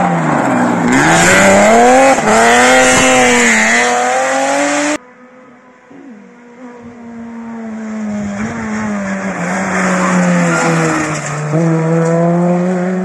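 Rally cars at speed on a stage, engines dropping in pitch and revving back up between gear changes, with some tyre noise. About five seconds in, the sound cuts abruptly to another car, whose engine grows louder as it approaches and holds high revs.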